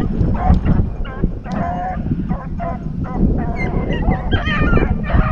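A pack of rabbit hounds baying in short, repeated calls as they run a rabbit's trail, several voices overlapping in the second half, over a low rumble of wind or handling noise.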